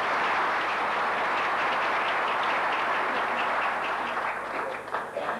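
Audience applauding, steady at first, then thinning to scattered claps and dying away near the end.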